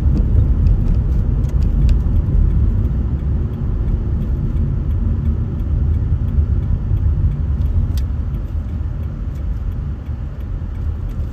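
Car interior driving noise: a low, steady engine and road-tyre rumble, easing off somewhat in the last few seconds, with a single sharp click about eight seconds in.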